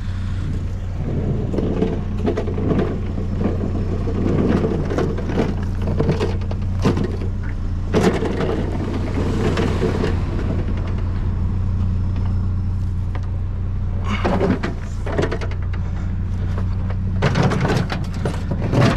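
A vehicle engine idling steadily under irregular knocking and clattering as junk is rummaged through and handled.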